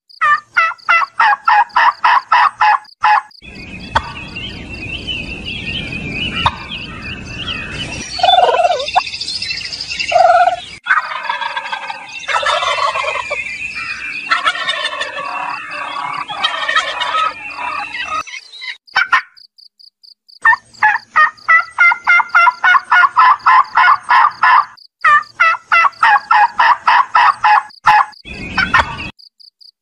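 Domestic turkeys gobbling in rapid runs at the start and again over the last third, with a noisier middle stretch of mixed, varied calls.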